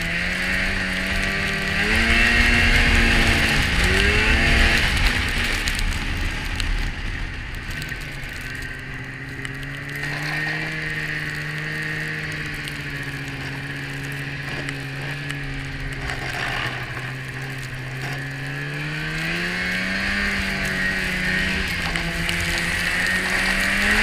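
Polaris 550 snowmobile's fan-cooled two-stroke twin running under way: it revs up a couple of seconds in, drops briefly off the throttle about four seconds in, holds a lower steady pitch, then climbs again near the end.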